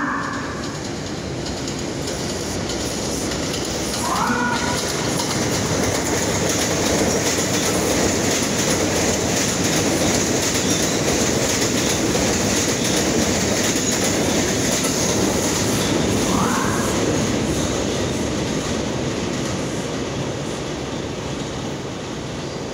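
R179 subway train passing through an elevated station: a steady rumble and clatter of wheels on rail that builds over the first few seconds, stays loudest while the cars go by and eases off near the end. A few short rising squeals cut through, one near the start, one about four seconds in and one about sixteen seconds in.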